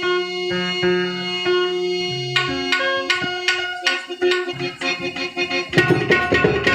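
Harmonium playing a santvani melody in held reed notes. Tabla strokes join about two and a half seconds in and become dense and louder near the end.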